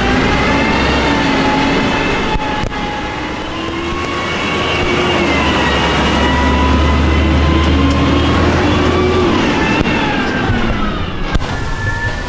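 Side-loader garbage truck pulling away and driving past, its engine and drivetrain running under load. The pitch rises and falls as the truck accelerates and changes gear, with a deep hum strongest in the middle of the pass.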